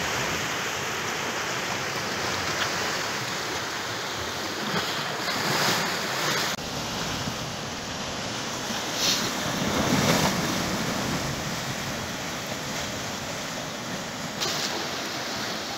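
Sea waves washing and swirling among rocks, a steady rush that swells louder about five seconds in and again about ten seconds in, with wind buffeting the microphone.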